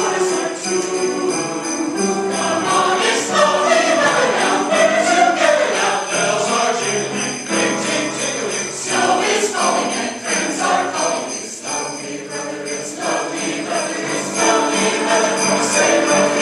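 Choir singing with jingle bells shaken steadily along through the song.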